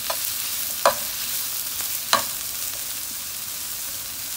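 Sliced onions and green chillies sizzling steadily in a little oil in a frying pan while a spoon stirs them. The spoon knocks against the pan three times in the first half.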